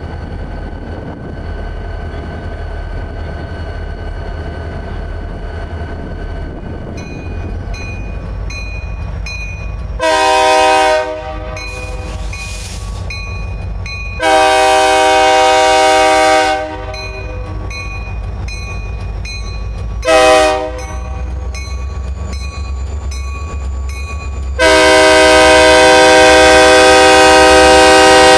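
Diesel freight locomotives approaching a road crossing, the lead unit's multi-chime air horn sounding the grade-crossing signal: long, long, short, long, the last blast held about four seconds. Under it the diesel engines rumble low, and from about a quarter of the way in a bell rings steadily about twice a second.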